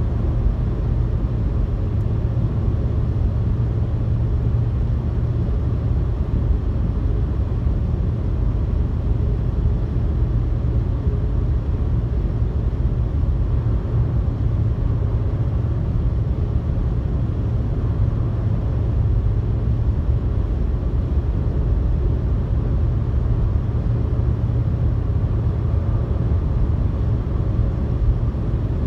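A car cruising on a highway, heard inside its cabin: a steady, even low rumble of road and engine noise with no distinct events.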